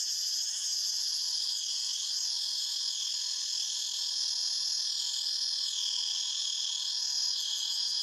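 Chorus of cicadas droning without a break, a dense high-pitched buzz whose pitch wavers slowly up and down.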